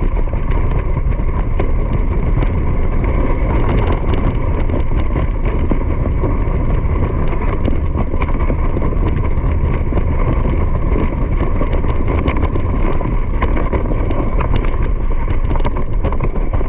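Steady loud rumble of wind and movement on the microphone, unbroken throughout.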